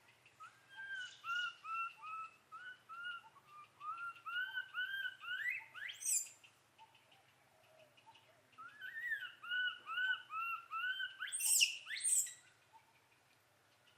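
A bird singing two phrases, each a quick run of short, arched, repeated notes that ends in a sharp rising whistle.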